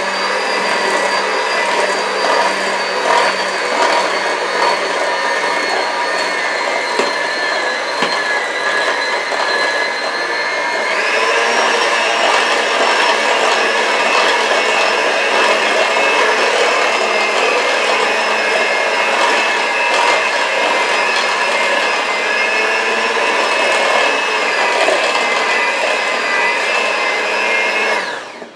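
Handheld electric mixer running steadily, its beaters whirring through thick muffin batter in a stainless steel bowl. About eleven seconds in, its whine steps up in pitch, and it shuts off near the end.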